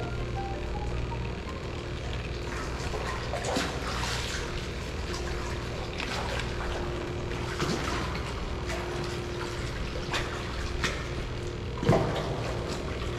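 Water sloshing and splashing close by, with several sharper splashes, the loudest near the end, over a steady low hum.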